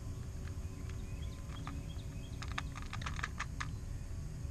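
A quick run of light clicks and rattles, small fishing tackle being handled in a plastic box, thickest about two and a half to three and a half seconds in, over a steady low rumble.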